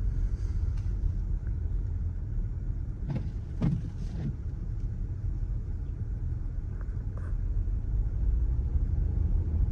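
2018 Dodge Durango driving through snow, a steady low rumble of engine and road noise, with a few brief knocks about three to four seconds in.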